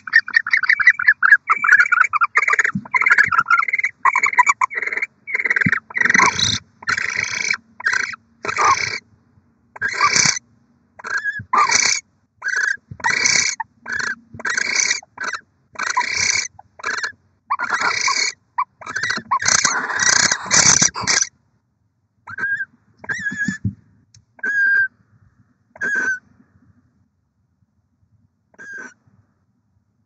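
Barn owls calling in the nest box. It opens with rapid twittering, then gives a long run of short, harsh screech-like calls, about two a second. After about twenty seconds these thin out to a few short, single chirps.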